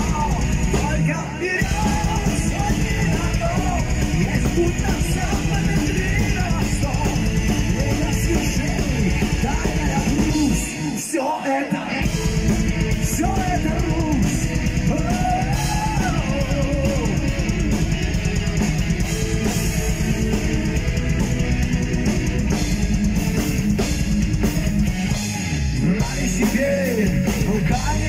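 Live heavy rock band playing: distorted electric guitars, bass and drum kit with sung lead vocals. About eleven seconds in, the bass and drums drop out for a moment before the full band comes back in.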